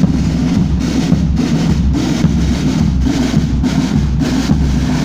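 Marching drums, snare drums with a bass drum, beating a steady marching rhythm of about two strokes a second.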